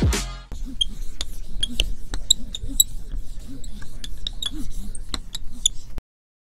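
Dry-erase marker squeaking and tapping on a whiteboard in many quick short strokes, stopping abruptly about six seconds in. Music ends in the first half second.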